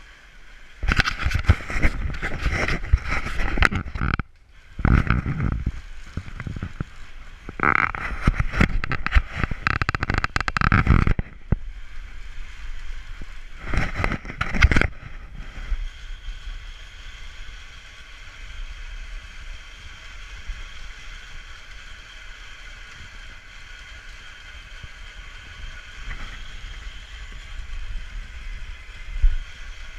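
Pedal-driven grain mill grinding buckwheat: several loud bursts of grinding noise over the first fifteen seconds or so, then a steadier, quieter running sound.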